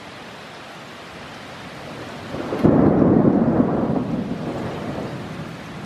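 A clap of thunder rumbles in suddenly about halfway through, loudest for about a second, then slowly fades, over a steady hiss of rain.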